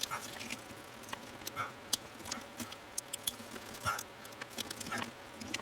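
Scattered light clicks and ticks with a few faint scrapes: hands and a small hand tool working plastic wiring connectors loose on a pickup truck.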